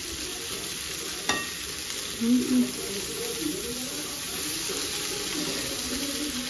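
Shredded cabbage and green capsicum sizzling in a steel kadhai over a gas flame as they are stirred with a perforated steel ladle, with one sharp clink of the ladle on the pan about a second in. A brief low tone, the loudest sound, comes about two seconds in.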